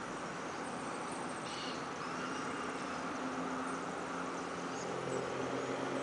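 Steady outdoor background noise with a low hum that comes in about two seconds in, a short high call about a second and a half in, and a few faint high chirps.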